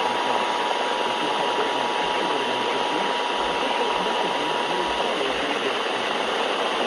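A steady emergency alert tone near 1 kHz, faint under heavy radio static, cuts off about five seconds in, leaving the static hissing.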